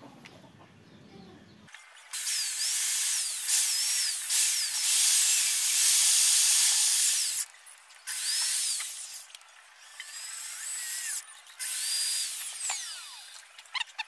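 Power drill running a 4 mm drill tap into a steel flat bar, drilling and threading a screw hole. After about two quiet seconds the motor whines up and down in pitch through one long run of about five seconds, then three shorter bursts.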